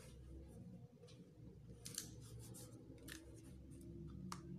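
Faint clicks and light rustling of hands handling a tablet computer, fingers tapping and sliding on its casing as it is turned over, over a low steady hum.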